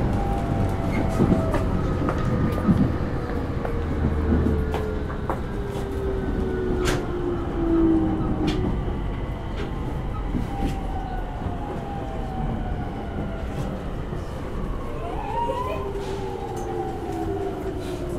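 JR E231-0 series commuter train heard from inside the car while slowing: the inverter and traction-motor whine falls steadily in pitch, with scattered clicks from the running gear. A brief rising whine comes about fifteen seconds in.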